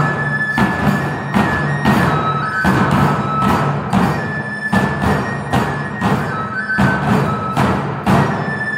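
Live Nebuta hayashi festival music: brass hand cymbals (tebiragane) clashing in a steady, even beat over large taiko drums, while a bamboo fue flute plays high held notes.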